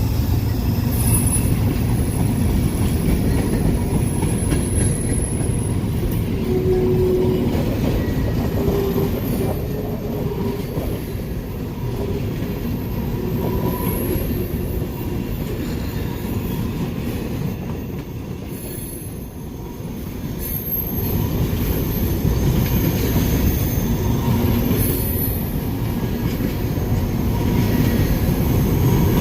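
CSX train rolling past, its cars rumbling steadily on the rails with intermittent high wheel squeal; the rumble eases briefly about two-thirds of the way through, then builds again.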